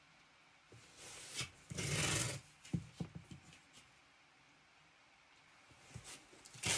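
Masking tape being peeled off its roll, loudest about two seconds in, followed by a few light ticks as it is pressed onto the wooden floor, and another short pull near the end.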